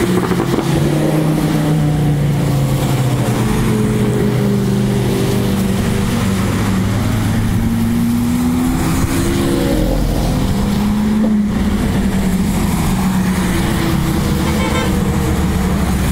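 A line of exotic sports and luxury cars, Lamborghinis and a Dodge Viper among them, driving past one after another, several engines heard at once with their notes rising and falling as the cars accelerate and ease off.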